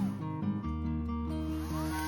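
Background instrumental music with sustained notes and a high tone that glides up and back down.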